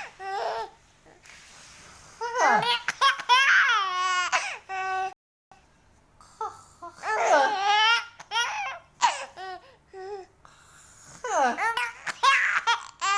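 Baby laughing hard in three bouts, high-pitched and breathy, with some babbling between, from being tickled.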